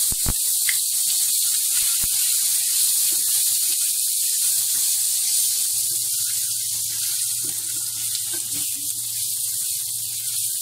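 Chopped garlic just dropped into hot oil, sizzling in a frying pan with a steady hiss. A couple of sharp knocks come near the start.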